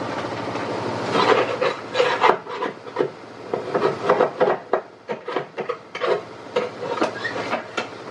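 A scraper rasping in short, irregular strokes against the inside of a diesel fuel tank, starting about a second in, as it loosens slimy sludge and sediment from the tank bottom.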